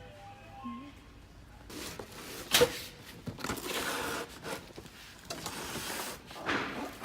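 Rustling and handling noise with a sharp click or knock about two and a half seconds in, over a faint background.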